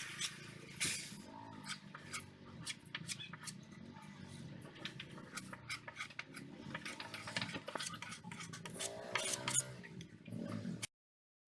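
Irregular light clicks and clatter of hard objects being handled, with a few short pitched calls near the end; the sound cuts off suddenly just before the end.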